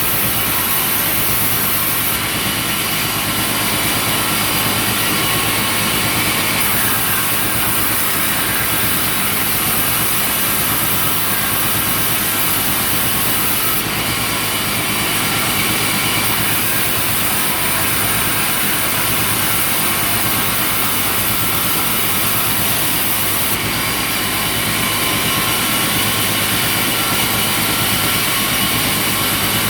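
Sawmill machinery running steadily: an engine driving the saw, with a high hiss on top that changes in level every several seconds.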